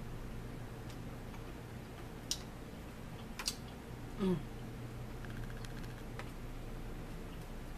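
Light clicks and taps of forks against plates and a plastic food container during a meal, over a steady low hum; a short sound gliding down in pitch about four seconds in is the loudest moment.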